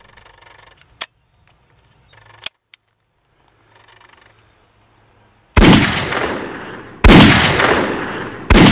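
Toy revolver fired three times, about a second and a half apart from just past halfway: loud sharp bangs, each fading over about a second. Before them come a couple of faint clicks of the gun being handled.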